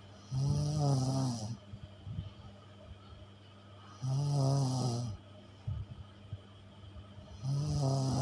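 Snoring in sleep: three loud, buzzing snores of about a second each, coming about every three and a half seconds, with faint breathing clicks between them.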